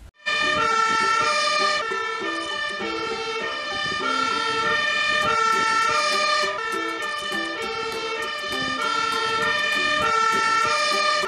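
Fire engine siren of a Magirus Multistar 2 aerial-ladder truck, sounding its two-tone call and alternating steadily between a high and a low note.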